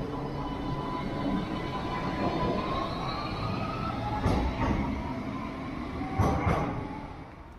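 CAF Urbos 3 light rail tram pulling away from the stop. Its electric traction drive whines steadily, rising a little in pitch as it gathers speed, over wheel and rail rumble. Two pairs of clanks from the wheels on the track come about four and six seconds in, then the sound fades as the tram leaves.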